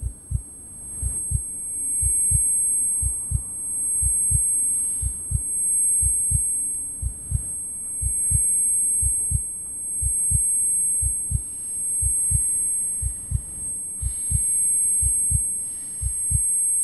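Heartbeat sound effect: low double thumps, about one pair a second, over a drone that swells and fades every couple of seconds, with a steady high ringing tone above.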